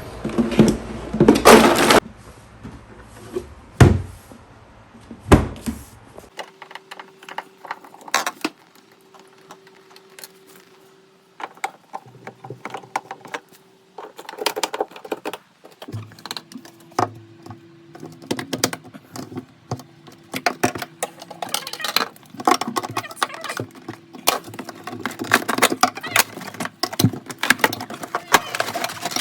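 Irregular clicks, knocks and light clatter of objects being handled, over a steady hum.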